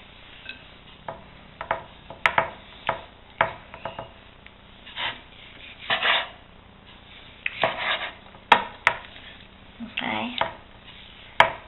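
Kitchen knife slicing boiled chicken breast on a wooden cutting board: irregular sharp knocks of the blade on the board, mixed with short scraping strokes as it cuts through the meat.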